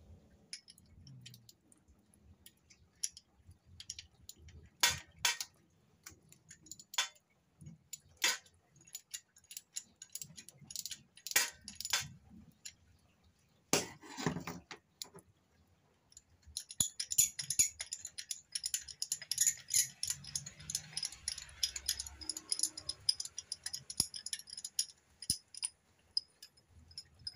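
Metal hand tools clinking and knocking as a spark plug socket is fitted, then a long run of rapid ratchet-wrench clicking starting a little past halfway through as a spark plug is unscrewed.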